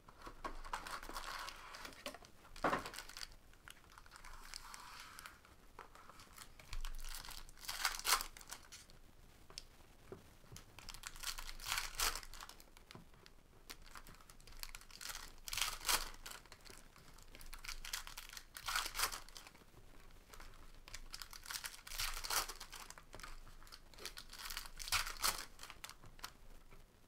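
Plastic and foil card packaging crinkling and tearing as Panini Prizm hobby boxes are opened and their foil packs handled and stacked, in a string of short rustling bursts.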